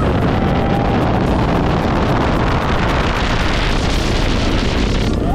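Loud rush of wind buffeting the microphone on a fast-moving roller coaster, a steady roar of noise without a break.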